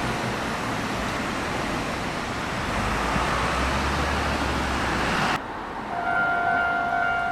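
Rushing noise of a passing vehicle with a low rumble that swells a little, cut off abruptly about five seconds in. A second later a steady high tone with another an octave above begins and holds.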